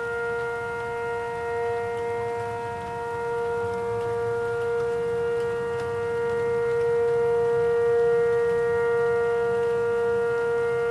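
Outdoor tornado warning siren sounding a steady, unbroken wail at one held pitch, its loudness slowly swelling and easing.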